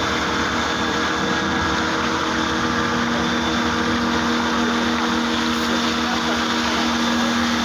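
Motor-driven water pump running steadily, a loud constant hum with a few fixed tones over a rushing noise, as water is pumped in to simulate flooding against a flood barrier.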